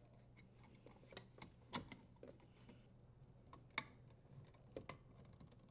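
Faint, scattered small metallic clicks and ticks of a screw being threaded and driven with a nut driver into the dishwasher's terminal box cover, the sharpest click a little before four seconds in.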